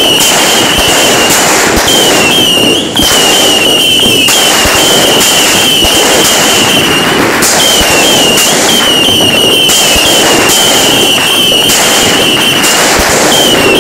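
Aerial fireworks going off loudly in quick succession: dense crackling and popping, with a wavering high whistle that cuts out and starts again every second or two.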